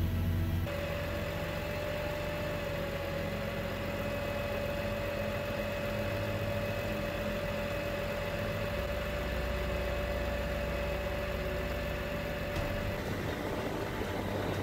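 Utility bucket truck's engine running while its hydraulic boom lifts the bucket, with a steady whine that starts about a second in and stops near the end.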